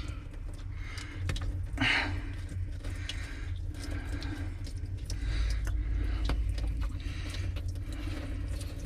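Scattered clicks and scrapes of hands and tools working at a boat engine's block drain plugs, over a low rumble, with a louder scrape about two seconds in.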